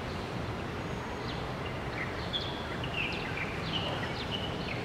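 Steady ambient background noise with a series of short, high chirps from small birds calling on and off.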